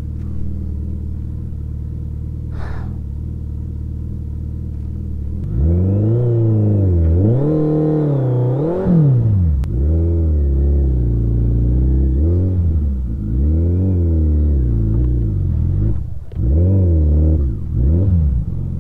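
Sport motorcycle engine running at a low, steady note for about five seconds. It is then revved up and down again and again as the throttle is opened and closed.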